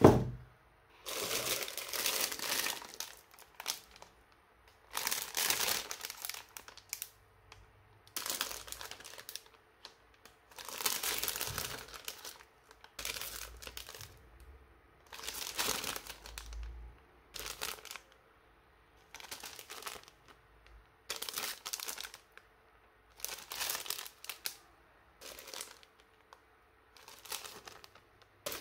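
Model kit packaging crinkling as it is handled: the plastic bags of parts rustle in about a dozen separate bursts of a second or so, with short quiet gaps between.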